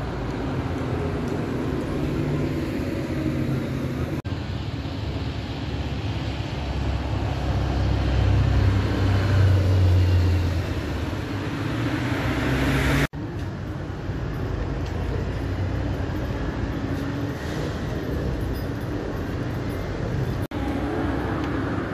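City street traffic: a diesel city bus pulling past, then cars, a steady engine rumble with tyre noise. The noise swells about halfway through as a vehicle passes close. The sound drops out for an instant three times.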